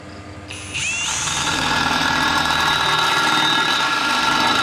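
Cordless drill starting up about half a second in, its whine rising briefly and then running steadily as the bit cuts a pilot hole into a metal bracket.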